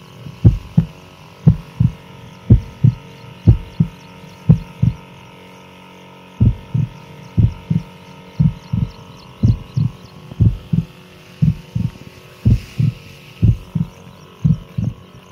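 A crop sprayer at work while spraying a young date palm: a steady hum with pairs of low thumps about once a second. The thumps stop briefly about five seconds in, then resume.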